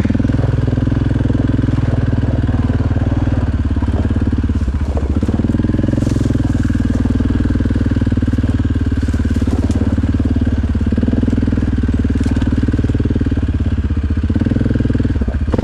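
Suzuki King Quad 750 ATV's single-cylinder engine running steadily through an aftermarket HMF Performance exhaust. The engine note dips briefly about five seconds in and again near the end.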